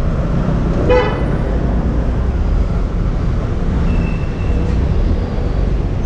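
Street traffic rumbling steadily, with one short vehicle horn toot about a second in and a faint thin high tone a few seconds later.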